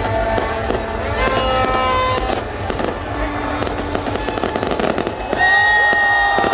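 Fireworks going off: a dense run of cracks and bangs, with high held whistling tones and short pitch glides over them, one louder whistling tone coming in a little after five seconds.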